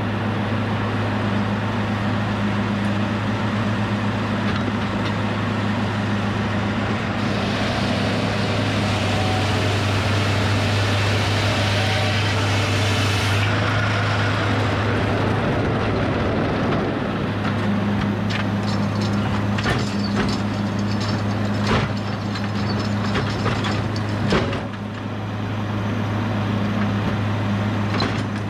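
Edmiston hydraulic sawmill running with a steady mechanical hum. From about seven seconds in, a louder, harsher hiss lasts for roughly six seconds, then cuts off. Later comes a scatter of sharp knocks and clanks.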